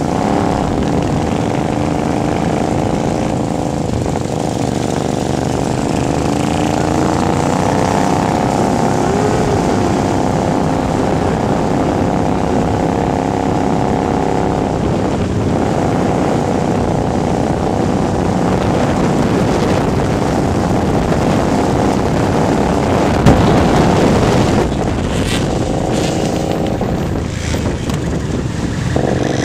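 Mirage 250 motorcycle engine running under way, heard from a camera on the bike. Its note rises gently as it pulls and drops back at gear changes, over a steady rumble of wind on the microphone, and there is a single sharp knock about three-quarters of the way through.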